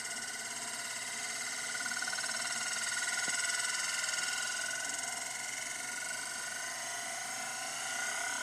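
Euler's disk, a heavy metal disk, spinning and rolling on its mirrored base, making a steady ringing whirr with a rapid flutter.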